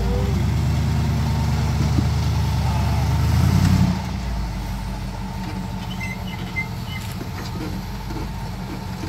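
Rock crawler's engine revving under load as it climbs over rocks, the pitch rising to its loudest just before four seconds in. It then drops suddenly back to a lower, steady run.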